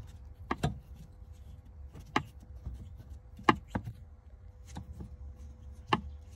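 Plastic interior trim of a Daewoo Matiz's centre console being handled and fitted: about eight sharp clicks and knocks at irregular intervals, over a low steady hum.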